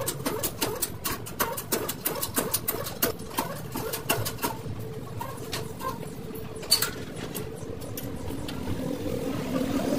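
Hydraulic shop press pressing a wheel bearing and hub into a steering knuckle: rapid metallic clicks and ticks over a steady hum, dense for the first few seconds and then thinning out, with one sharp click about seven seconds in.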